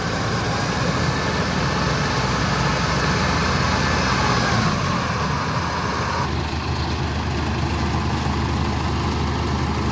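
Kubota DC-105X combine harvester's diesel engine running steadily. A high whine slides down in pitch about four to six seconds in and cuts off suddenly, leaving a deeper low hum.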